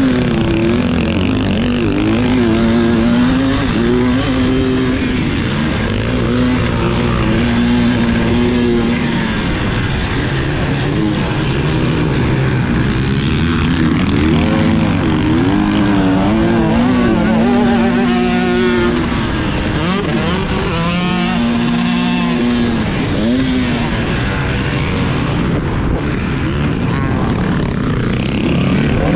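Motocross dirt bike engine heard up close from the bike itself, revving up and falling back again and again as the rider works the throttle through the gears and turns, with quick rises and drops in pitch in the middle of the stretch.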